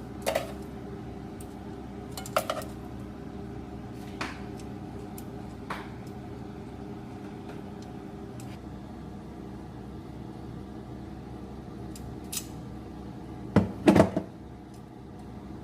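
Utensils and dishes clinking and knocking while vegetables are plated: a few scattered taps, then a louder cluster of knocks near the end. A steady low hum runs underneath.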